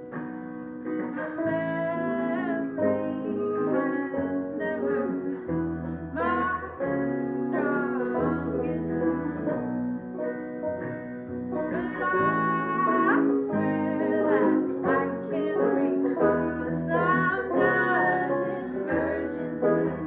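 Folk song: female voices singing over plucked acoustic guitar and banjo, with upright bass notes underneath.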